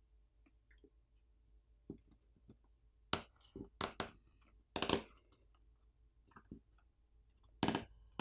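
Sharp clicks and snaps as the Samsung Galaxy S24 FE's wireless charging coil and NFC antenna assembly is pried and lifted off the phone's frame. A handful of separate clicks, the loudest cluster in the middle, with light handling taps between.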